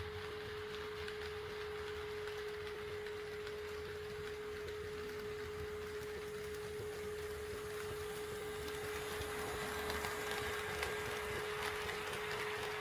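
HO scale model train running on the layout's track, its running noise growing louder about two-thirds of the way through, over a steady pure-toned hum.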